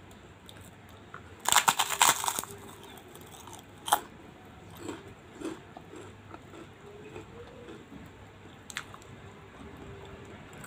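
Close-up crunching of a fried kerupuk cracker being bitten and chewed. A quick run of loud crunches comes about a second and a half in, then a single crunch near four seconds and a few fainter ones as the chewing goes on.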